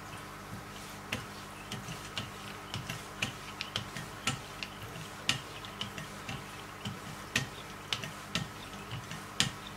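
Wicked Edge guided knife sharpener in use with 0.125-micron paddles stroking alternately along both sides of a clamped blade, heard as a run of light, irregular clicks, a few a second.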